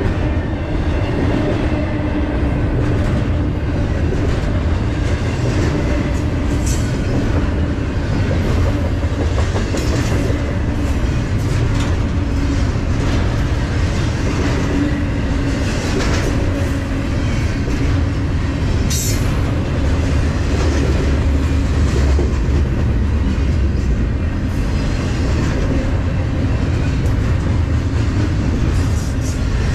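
Double-stack intermodal freight train's well cars rolling past close by: a steady, loud rumble and clatter of steel wheels on the rail, with a few brief high-pitched sounds along the way.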